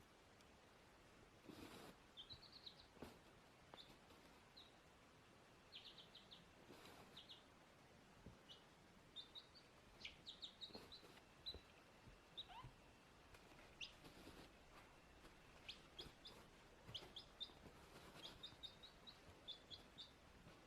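Faint, short high peeps from a baby chick, coming in quick runs of a few at a time with pauses between.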